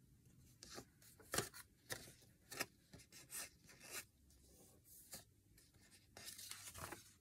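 Washi tape being torn and pressed onto a sheet of paper: a string of short, papery scratches and rustles about a second apart, with a longer rustle near the end.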